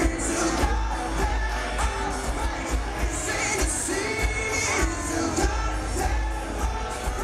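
Pop-punk band playing live through a concert sound system: sung lead vocal over drums, electric guitar and bass guitar, heard from within the audience with steady drum hits and heavy bass.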